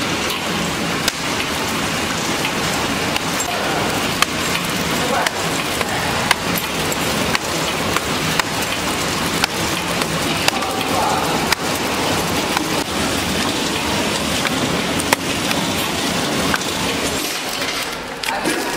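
Flow-wrapping packaging machine running: a steady mechanical hiss and clatter with a sharp click about once a second.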